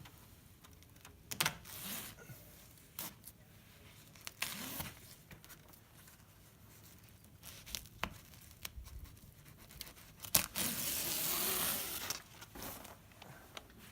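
Rubber flashing membrane tearing, one loud rasping tear lasting nearly two seconds about ten seconds in, after scattered clicks and knocks of handling.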